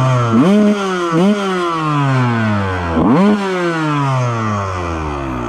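Honda CR125 two-stroke single-cylinder motocross engine revved in three quick throttle blips, the revs sliding slowly back down after each, longest after the third.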